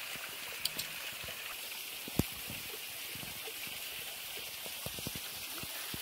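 Thin, low-flow waterfall falling into a rock pool: a steady hiss of water with scattered small drips and clicks, and one sharper tap about two seconds in.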